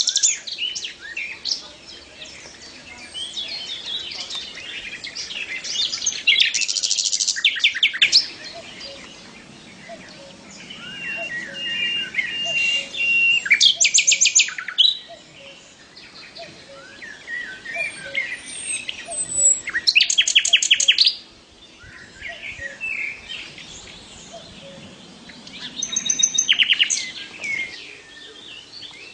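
Srikatan lodo singing a varied, chattering song: twittering phrases broken by rapid trills about every six seconds, with a held whistled note near the middle.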